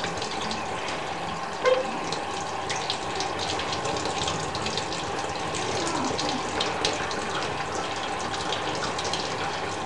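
Water running steadily in a thin stream, like a tap left on, for a pet budgie's bath.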